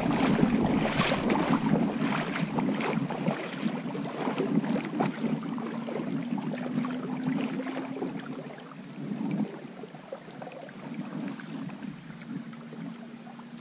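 Shallow river water splashing and rushing, as from wading through a shallow run, busier and louder in the first few seconds, then settling to a quieter, steady wash.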